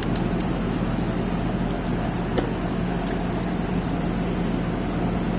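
Electric motor of an old ILCO key-duplicating machine running with a steady hum, with a few faint clicks over it.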